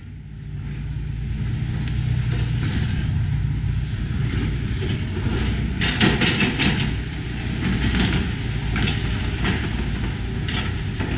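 A tracked excavator's diesel engine running steadily while its demolition grab works the ruins, with repeated crunching and clattering of brick and timber rubble from about halfway through. The sound rises from silence in the first second.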